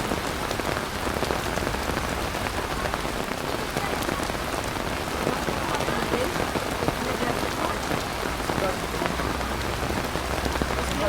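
Heavy rain pouring steadily, a dense patter of drops hitting surfaces, with a low rumble underneath that grows stronger near the end.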